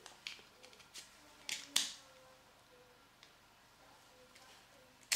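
Light clicks and taps of an SD card being slid into the slot of an Apple USB-C to SD card reader and the small plastic reader being handled. Several small clicks in the first two seconds, the sharpest a little under two seconds in, and another sharp click at the very end.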